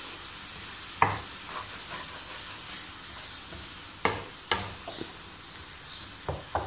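Eggs and onion-tomato masala sizzling in a non-stick frying pan while a wooden spatula stirs them. The spatula knocks and scrapes against the pan several times, sharpest about a second in and twice around four seconds in.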